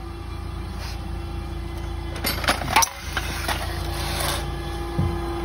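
Forklift engine running steadily with a constant hum, as the steel jib crane rigged to it is lifted; a few sharp metal clanks and a short squeak come about halfway through, and a knock near the end.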